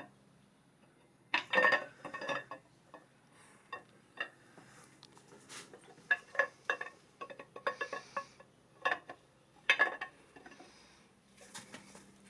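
Camshaft being slid by hand into an engine block: short metallic clinks and knocks at irregular intervals as the lobes and journals touch the cam bearings on the way in.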